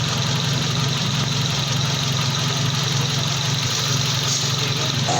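Engine of a 1997 Suzuki Baleno idling steadily.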